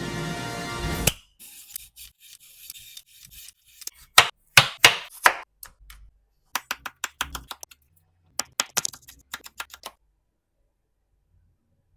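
Background music cuts off about a second in. It is followed by runs of short, sharp rasping strokes from a potato being cut by hand, several strokes a second in three bursts, the loudest bursts a few seconds in.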